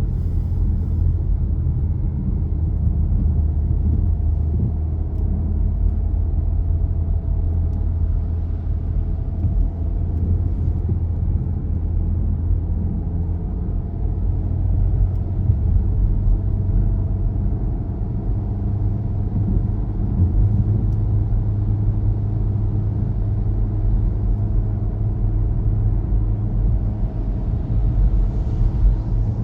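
A car driving: a steady low rumble of engine and road noise, with a faint whine that comes and goes.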